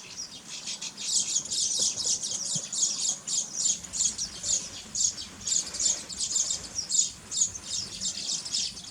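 A flock of lesser whistling ducks giving a continuous chorus of short, high whistled calls, many birds overlapping, several notes a second.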